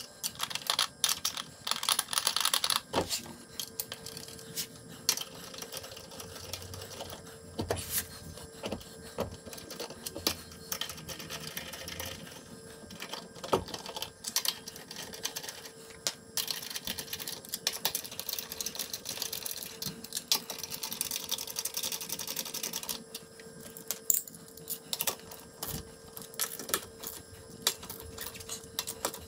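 Rapid, irregular metallic clicks and rattles of lug nuts being spun onto wheel studs by hand and run down with a socket wrench, with a faint steady hum starting a few seconds in.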